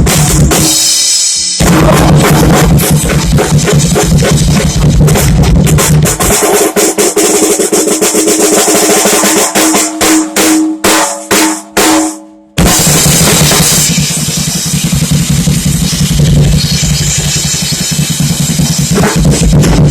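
Loud drum-heavy music with a pounding kick drum. About six seconds in the bass drops out and the beat breaks into short choppy cuts, falling silent for a moment before the full beat comes back in at about twelve and a half seconds.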